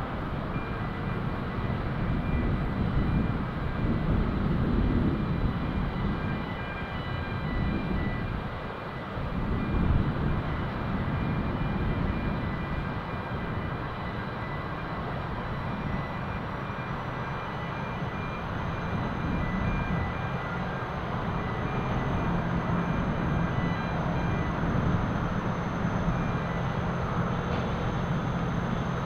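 Wind gusting on the microphone over a steady distant rumble from an approaching freight train. About halfway through, a faint high whine comes in and rises slightly, and a low hum grows steadier as the train draws nearer.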